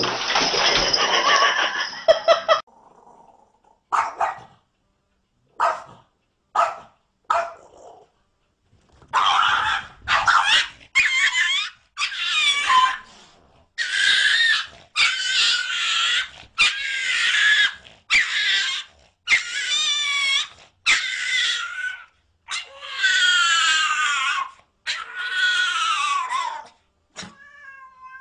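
Dog vocalising: after a couple of seconds of loud noise, a few short yips, then a long run of drawn-out whining howls of about a second each, some wavering and some falling in pitch.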